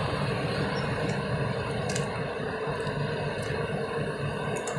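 Steady machinery hum of a tanker ship's engines, a low drone with a few faint clicks over it.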